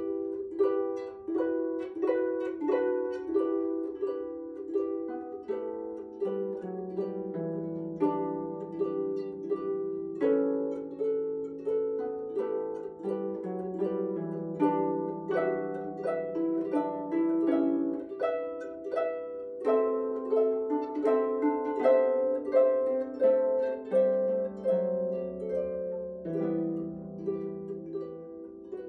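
Solo harp played by hand: a melody of plucked, ringing notes over lower notes that are held, several notes a second without a break.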